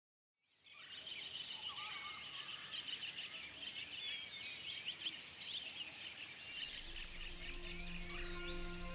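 A chorus of many small birds chirping and twittering in dense trees, fading in after about half a second. Near the end, low, sustained music notes fade in underneath.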